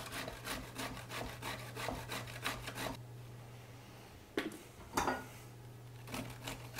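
Vegetables being grated on a stainless steel box grater into a glass bowl, with quick rasping strokes at about four or five a second. The strokes pause briefly midway, two single louder scrapes follow, and the rapid strokes start again near the end.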